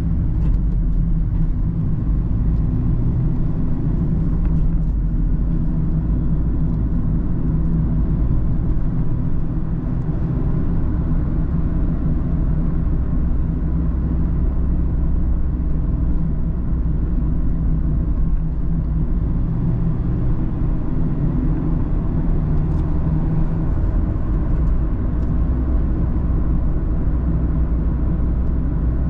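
Mazda Roadster (ND MX-5) on the move: steady engine and road noise heard from inside the car. The engine note shifts a little in pitch every few seconds.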